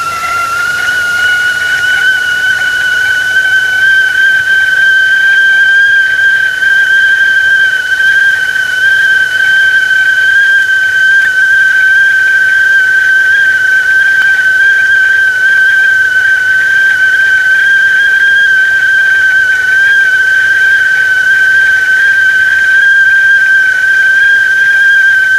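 Whistling kettle (tea pot whistle) sounding at the boil: one loud, high, steady whistle that rises a little in pitch over the first couple of seconds, then holds level.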